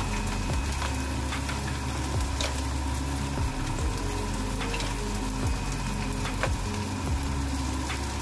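Mussels sizzling and steaming in a hot pan, with scattered sharp clicks as shells are dropped in and knock against the pan and the spatula.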